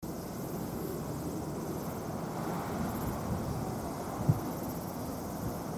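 Steady low outdoor rumble with a faint, high, pulsing insect drone above it, and one brief low thump a little past four seconds in.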